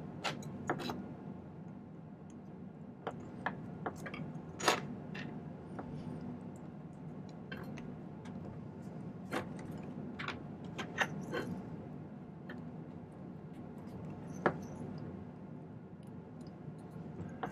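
Small metallic clicks and light taps, scattered every second or so, as a wire pin is pushed through the small sterling silver hinge tubes of the pendant pieces and the pieces are handled, over a steady low hum.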